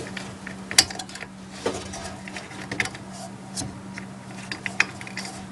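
Plastic push-pin fasteners of an Akasa CPU heatsink clicking as they are pressed down into the motherboard holes, with light knocks and rattles from the hand on the cooler. About five sharper clicks stand out, over a faint steady hum. One pin had not locked and is being pushed again.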